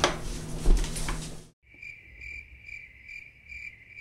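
Scraping mixing noise from a spoon working stiff, crumbly suet dough in a steel stockpot, which cuts off about a second and a half in. A chirping-crickets sound effect follows: a steady high chirp about twice a second, the gag for time passing.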